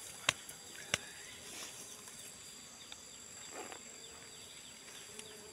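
Faint forest insect chorus of steady, high-pitched tones. Two sharp clicks come in the first second, and a faint low buzz sounds near the end.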